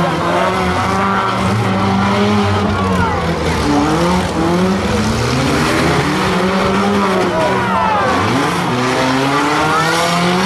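Several demolition derby cars' engines running and revving at once, their pitches rising and falling continually as the cars manoeuvre.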